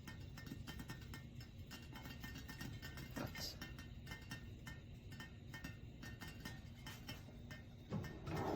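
Faint background music with rapid ticking clicks running through it, and a louder knock near the end.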